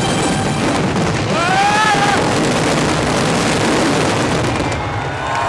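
Finale barrage of aerial firework shells bursting in rapid succession, a dense, unbroken run of bangs and crackle that thins out slightly near the end. About a second and a half in, a spectator lets out a rising-and-falling whoop.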